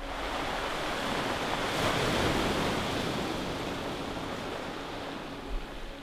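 Surf breaking on a beach. The wash of a wave swells about two seconds in and then eases off.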